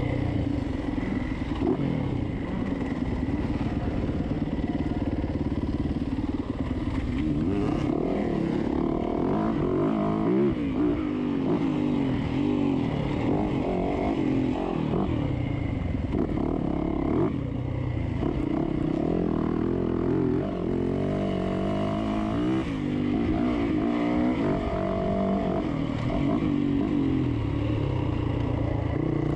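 Yamaha dirt bike engine under race throttle, its pitch climbing and dropping again and again as the rider accelerates, shifts and backs off.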